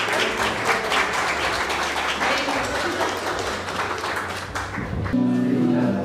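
Audience clapping and applauding, with music underneath. About five seconds in, the sound cuts abruptly to music with steady held notes.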